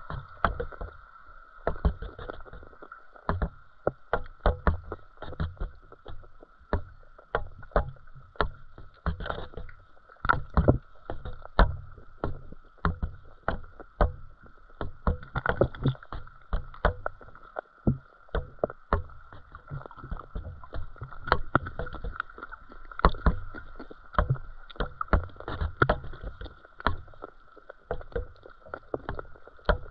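Underwater sound picked up by a submerged GoPro in its waterproof housing: a steady high hum with irregular sharp clicks and low knocks, a few each second.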